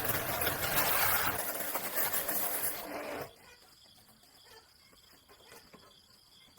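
Honda 110cc motorbike engine running, then cutting off suddenly about three seconds in, leaving faint crickets. The mechanic finds this engine very noisy and weak, the state before its piston rings are replaced.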